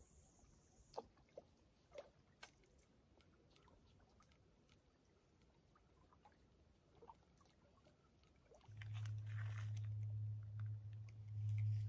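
Faint clicks from a spinning rod and reel being worked after a cast, then from about nine seconds in a steady low hum that is much louder than the clicks.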